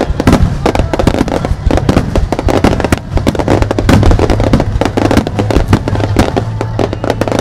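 Starmine fireworks barrage: shells bursting in rapid succession, many sharp reports a second with crackling between them. The bursts are loud and unbroken throughout.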